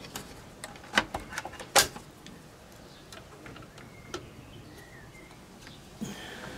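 Irregular clicks and knocks from handling the Corsair One PC case as it is taken apart. The two loudest knocks come about a second in and just under two seconds in, with a faint short squeak later on.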